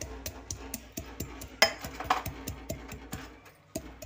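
Hand-pounding of cooking ingredients in a steel pot, a quick run of sharp knocks about four a second, crushing them finer.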